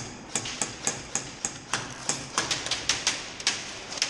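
Airsoft gunfire in a plywood-walled arena: sharp cracks about three to four a second, at a steady but uneven pace, like rapid semi-automatic shots and BBs hitting the walls.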